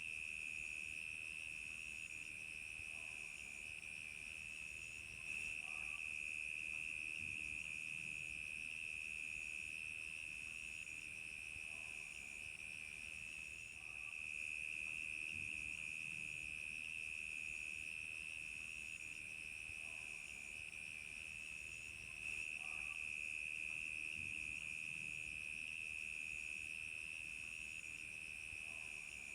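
Crickets chirping in a steady, high-pitched trill, with a second, higher chirp pulsing about once a second.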